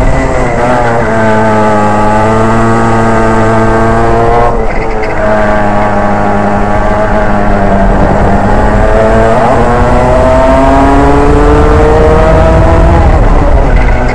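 Racing kart engine heard from on board, its pitch rising and falling with the throttle through the corners. The note drops sharply about four and a half seconds in and again about nine seconds in, climbing steadily after each drop as the kart accelerates, and falls again near the end.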